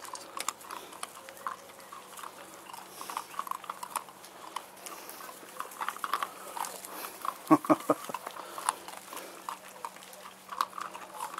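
Puppies eating dry kibble from steel bowls: many small irregular crunches and clicks, with a cluster of louder knocks about seven and a half seconds in.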